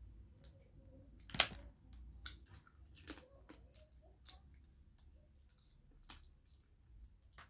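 Eating crayfish and snails by hand: a run of shell clicks and cracks with chewing and mouth sounds, the loudest a sharp crack about a second and a half in.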